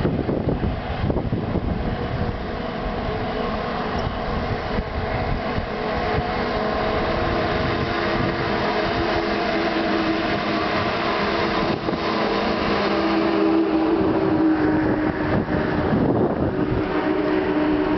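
Highway traffic approaching and passing: vehicle engines and tyres with a steady whistling whine of several held tones, growing stronger in the second half.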